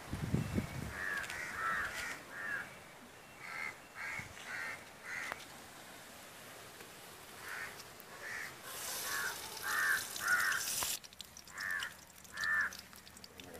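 A bird calling over and over outdoors, short calls coming in runs of two to four. A hissing noise rises under the calls about nine seconds in and cuts off about two seconds later.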